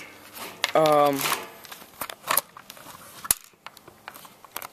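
Handling noise from a plastic airsoft MP5 and its magazine: scattered clicks and rustles, with one sharp click a little past three seconds in.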